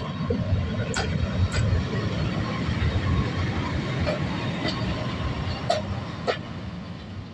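EP07 electric locomotive rolling slowly past at close range: a steady low rumble broken by about five sharp, irregular clicks and clanks from its wheels on the track. It fades a little near the end as it moves away.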